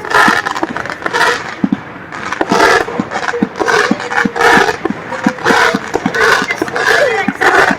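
Fireworks going off in a rapid, continuous series of sharp bangs and crackles, several a second.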